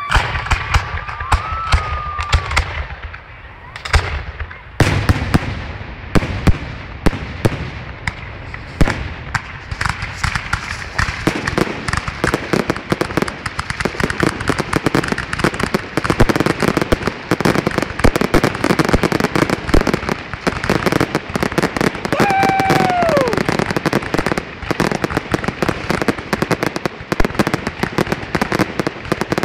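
Fireworks grand finale: rapid, nearly continuous bangs and crackles of shells bursting close overhead, with a short lull about four seconds in before the barrage thickens.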